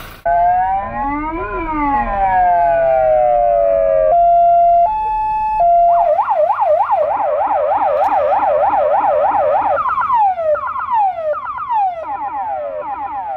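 Electronic police siren cycling through its tones: one slow wail that rises and falls, about two seconds of steady tones that step up and back down, a fast yelp at about three to four cycles a second, then quick falling sweeps.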